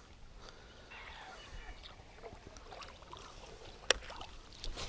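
Faint water and boat sounds on a river, with a sharp click about four seconds in and a smaller one near the end.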